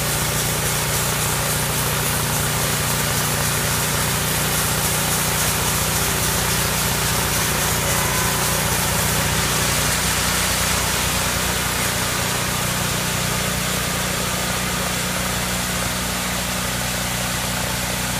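Sawmill engine running steadily while the band saw cuts through a log; about ten seconds in the engine note drops slightly.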